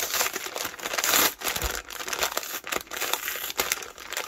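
Brown kraft-paper Amazon mailer crinkling and rustling in irregular bursts, with some tearing, as hands work it open; loudest about a second in.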